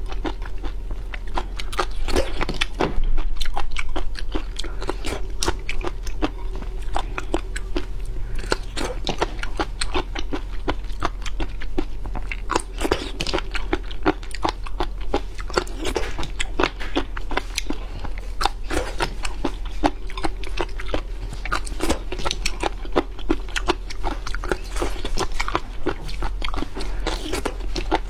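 Close-miked chewing and biting of seafood: a continuous run of wet, crisp crunching clicks.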